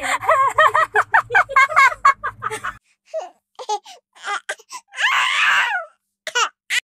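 Several women laughing and giggling in short, high-pitched bursts, with a longer burst of laughter about five seconds in.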